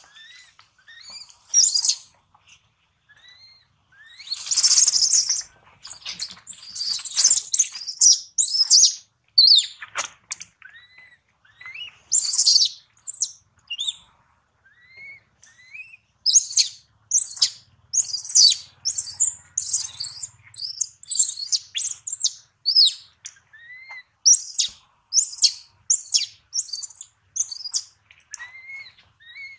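Infant macaque screaming and squeaking over and over in high, shrill calls, with a dense, loud outburst of screams about five seconds in, then a steady string of about two cries a second. These are the distress cries of a young monkey.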